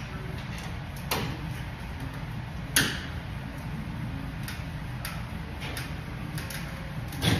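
Scattered sharp clicks and knocks of a tool and metal hardware as parts are fitted on a Kenworth truck hood, the loudest nearly three seconds in and just before the end, over a steady low shop hum.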